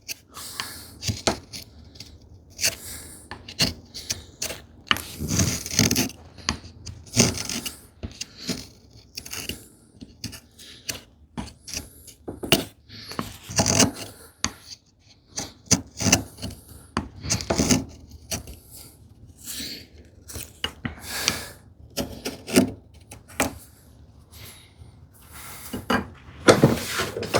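Hand tool shaving a small wooden filler piece in short, irregular scraping strokes, an edge tool paring along the end grain and long grain to shape the curve.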